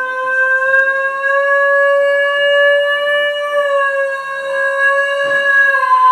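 Basenji howling: one long howl held steady on a single high pitch, sagging slightly in pitch near the end.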